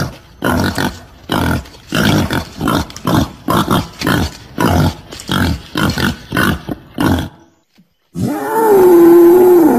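Wild boar (Sus scrofa) lure-call recording: a quick, even series of grunts, about two to three a second, that stops about seven seconds in. After a short pause, a loud, long call starts and wavers in pitch.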